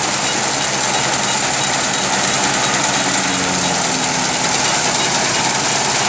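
Kubota SR55 combine harvester's engine and machinery running steadily.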